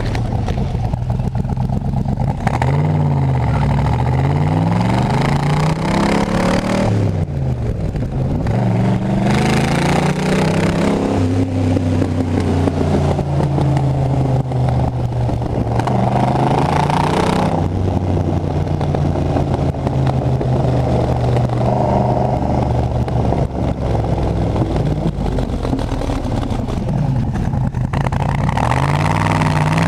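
Motor vehicle engine running under changing revs, its note rising and falling several times and holding steadier for a few seconds in the middle. The uploader suspects a misfire.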